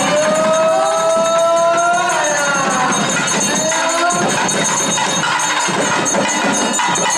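Devotional temple music with a long held note in the first two seconds, mixed with the hubbub of a crowd.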